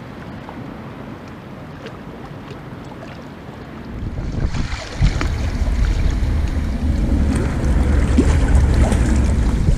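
Wind buffeting the microphone, rising sharply about four seconds in to a heavy rumble with hiss, with a single knock about five seconds in.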